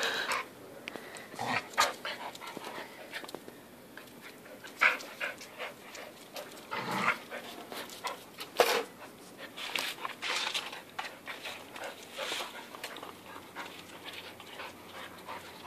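Staffordshire bull terrier-type dogs panting in short, irregular bursts after rough play, with scattered brief clicks.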